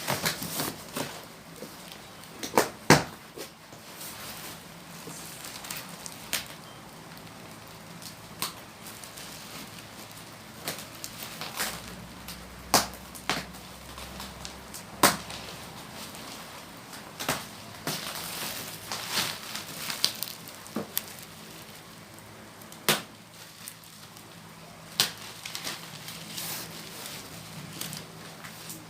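Packing material being handled and pulled off a wrapped TV: irregular sharp clicks, crackles and knocks every second or so.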